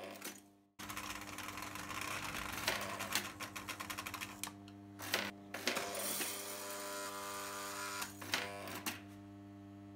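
Prewar Lionel O-gauge electric toy train running, with a steady electrical hum and a mechanical buzzing whir full of clicks and rattles, as an operating dump car tips its bin and unloads its cargo on the remote-control track section. The sound cuts out for a moment just before a second in, then returns.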